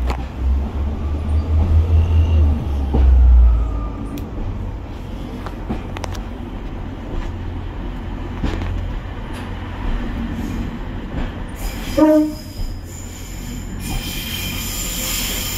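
Pacer diesel railbus running, its low engine rumble heaviest in the first few seconds. A short tone sounds about twelve seconds in, and a high wheel squeal sets in near the end.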